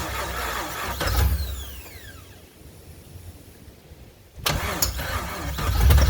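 LS V8 in a Nissan 240SX being cranked on the starter without firing, in two tries: the first stops about a second in, the starter's whine falling away, and the second starts abruptly about four and a half seconds in. The engine does not catch, which the owner puts down to it not getting fuel.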